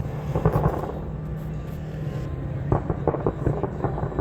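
Fireworks crackling in rapid bursts, once about half a second in and again in a longer, denser run from under three seconds in, over a steady low rumble.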